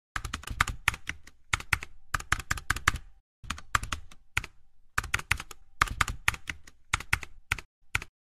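Computer keyboard typing: quick runs of key clicks broken by short pauses, stopping shortly before the end.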